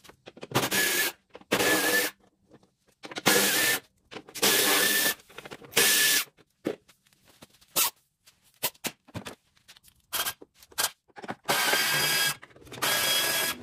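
Power tool run in about seven short bursts with a steady whine, undoing fasteners in a car's engine bay as the damaged front end is stripped. Light clicks and knocks from handling parts and tools fall between the bursts.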